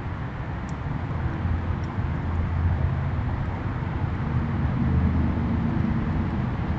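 Steady low rumble of distant road traffic, swelling a little and easing, with a few faint ticks over it.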